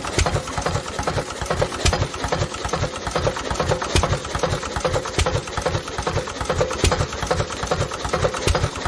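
International Harvester Type M 3 HP single-cylinder hit-and-miss engine running with a stuck crankcase breather. It makes a steady mechanical clatter several times a second, with a sharper knock every two to three seconds.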